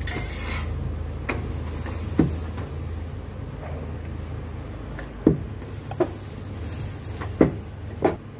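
Wooden rolling pin rolling out paratha dough on a rolling board, knocking sharply against the board about six times at irregular intervals, over a steady low hum.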